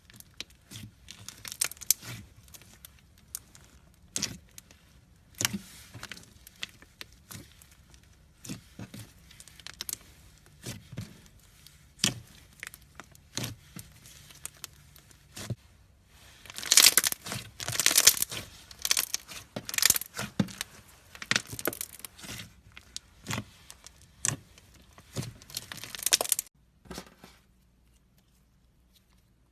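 Hands handling slime-making materials: irregular crinkling, tearing and sharp crackling sounds, busiest in the second half, stopping about three seconds before the end.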